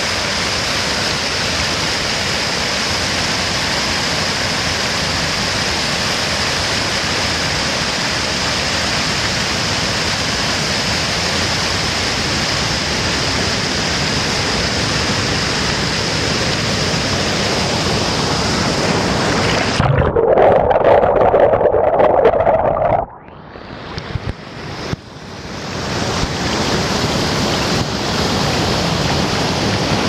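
Water pouring over a low dam spillway waterfall into churning white water: a loud, steady rushing roar. About twenty seconds in it grows louder and fuller, then about three seconds later it turns suddenly muffled and dull as the waterproof camera goes into the water, and the full rush builds back over the next few seconds.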